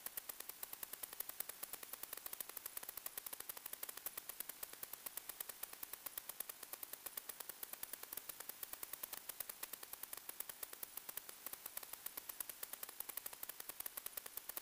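Steady radio static: a bright hiss with a rapid, even ticking, as heard on the audio channel of an analog 1.2 GHz FPV video link.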